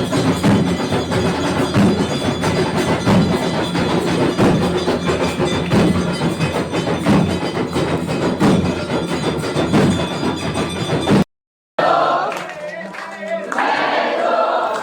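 Aarti music with rhythmic percussion and ringing bells, played loud and dense, cuts off suddenly about eleven seconds in; after a brief gap, a group of voices sings the aarti.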